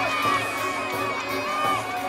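A crowd of children shouting and yelling at once, many voices overlapping.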